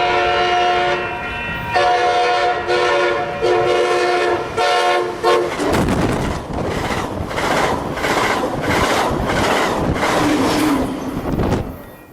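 The horn of Pacific Surfliner cab car 6908 sounds several blasts; the horn is chipped but still works. About six seconds in the blasts end, and the train rushes past with a rhythmic wheel clatter that fades near the end.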